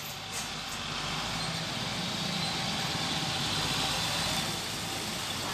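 Steady road-traffic noise, with vehicle engines idling.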